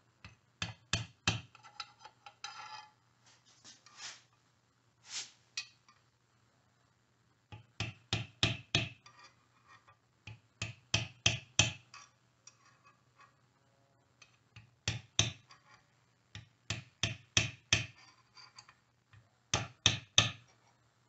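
Light taps of a small hammer on a brass rod, driving the plastic wire plug of a Honda GL1100 stator into its seat in the aluminium rear engine cover. The taps come in quick bursts of three to six, with pauses between the bursts.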